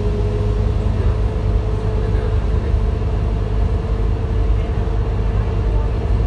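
Interior of a Scania K230UB single-deck bus under way: a steady low engine rumble fills the saloon, with a faint steady whine whose pitch steps up slightly about two and a half seconds in.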